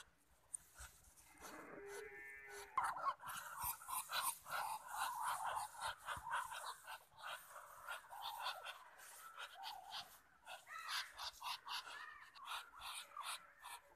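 Muscovy ducks gathered close together, giving many short, rapid breathy calls that overlap one another. A single short pitched call comes about two seconds in.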